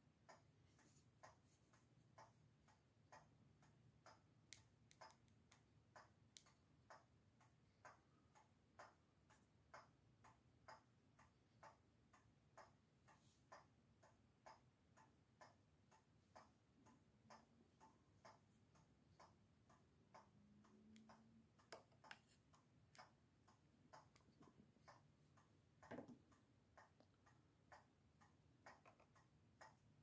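Near silence, with a clock ticking faintly about once a second and a couple of slightly louder clicks in the second half.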